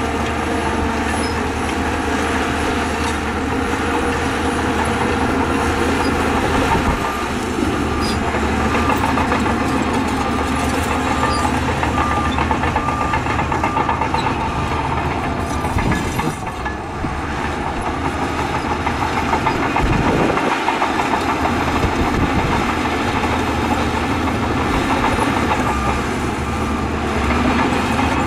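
Shantui crawler bulldozer working: its diesel engine runs steadily under load with the rattling clatter of its steel tracks. A faint regular beeping repeats through much of it.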